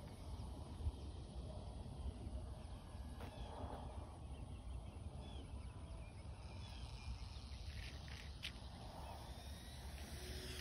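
Wind rumbling on the microphone, with a few faint bird chirps and no clear engine sound.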